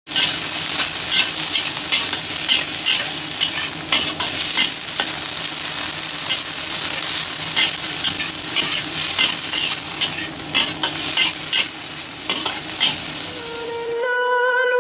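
Sliced bitter gourd and garlic sizzling in a hot wok as they are stir-fried, with repeated short scraping strokes of the stirring. The sizzling cuts off suddenly near the end and a chiming music jingle begins.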